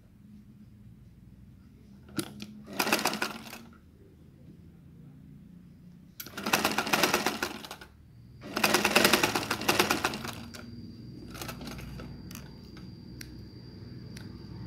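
Black straight-stitch sewing machine running in three short bursts of rapid stitching through a fabric cuff, the second and third longer and louder than the first. A few light clicks of scissors trimming follow near the end.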